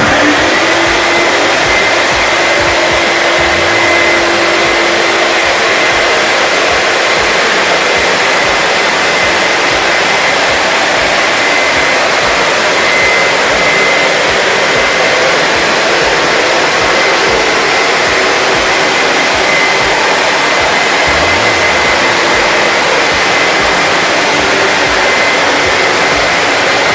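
Industrial vacuum motor running steadily, a constant rushing noise with a thin high whine.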